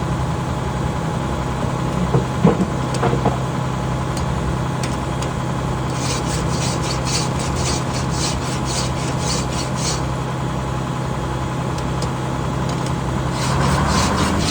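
A hand file rasping on saw teeth in a run of quick, even strokes, over a steady low hum.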